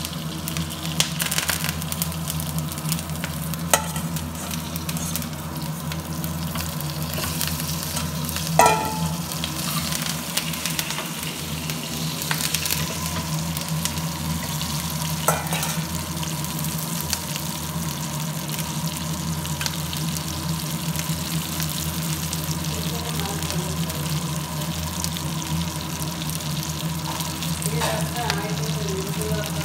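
Chicken drumsticks and curry leaves sizzling steadily as they shallow-fry in oil in a nonstick pan, over a steady low hum. A few brief knocks come through, the sharpest about a third of the way in.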